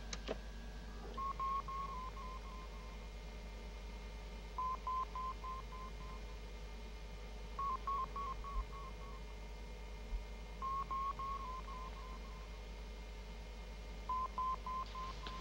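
Electronic beeping of science-fiction computer equipment: groups of five or six quick beeps about every three seconds, over a steady electronic hum. There is a single click at the very start.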